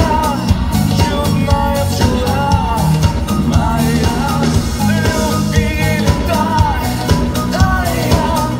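Live pop-rock band playing, with a male lead vocal singing over electric guitars and a drum kit keeping a steady beat.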